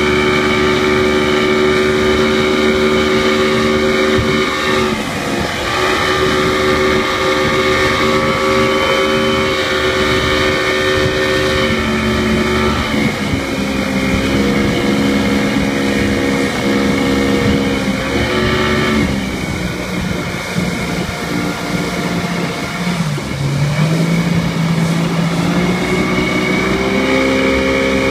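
Mercury outboard motor running at speed while towing an inflatable tube, its engine note shifting in pitch several times. It falls off about two-thirds of the way through and rises again near the end, with a steady rushing noise underneath.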